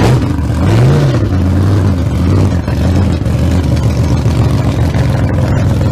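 Car engine running at idle, loud, with one rev about a second in that rises and falls in pitch.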